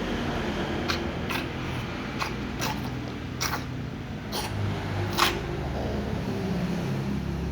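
A cat chewing fried chicken: a series of short, sharp crunching clicks, about seven, spaced irregularly, over a steady low rumble.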